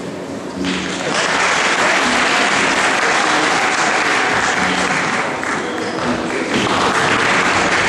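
Audience applauding. The clapping starts about a second in, eases briefly near the end, then picks up again.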